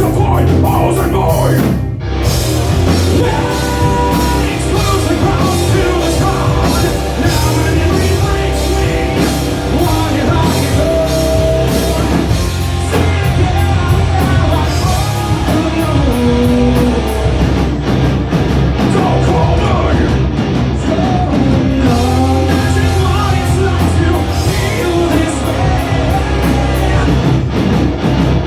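A rock band playing live and loud: distorted electric guitars, bass and drums, with a singer's voice over them.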